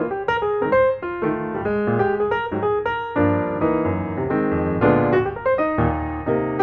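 Background piano music: a run of quick notes over chords, with some fuller chords held in the middle.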